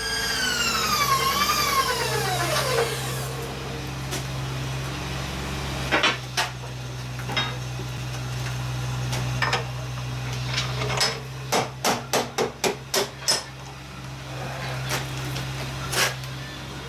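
Sharp hammer taps in a workshop: a few scattered blows, then a quick run of about half a dozen, then one more near the end, over a steady low machine hum.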